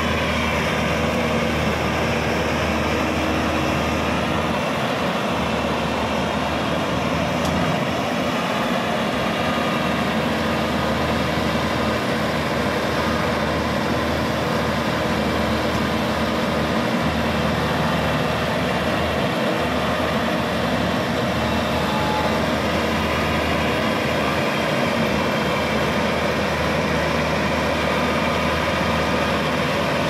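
Maxxi Bimo tracked combine harvester's engine running steadily at a loud, even level as the machine crawls across a ditch.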